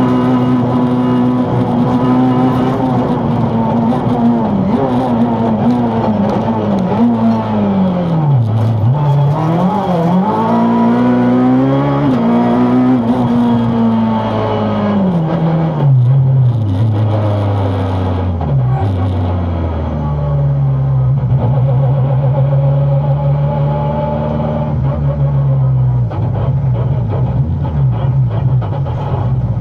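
Peugeot 207 rally car's engine at full stage pace, revving hard up and down with quick drops in pitch at the gear changes and corners. About two-thirds of the way through it holds high revs steadily for several seconds before coming off again near the end.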